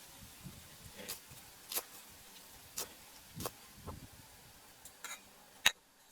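Irregular light taps and clicks, a few a second and unevenly spaced, with one much sharper, louder click near the end.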